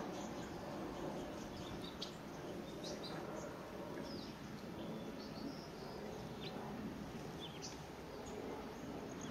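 Lesser goldfinches giving scattered short, high chirps over a steady low background rumble.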